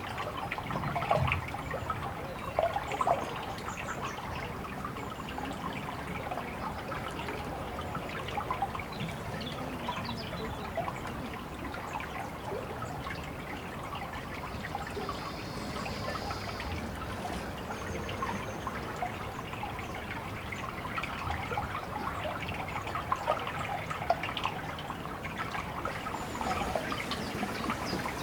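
Water trickling and splashing steadily, with a few louder splashes about a second in and again near the end.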